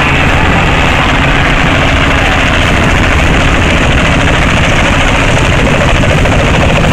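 Robinson R44 helicopter flying low and close, its piston engine and two-blade main rotor making a loud, steady drone.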